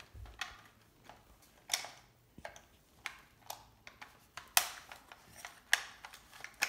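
Hard plastic clicks and rattles from a Nerf blaster being worked by hand as a snap-on part is pushed and lined up on it; scattered sharp clicks come about a second apart.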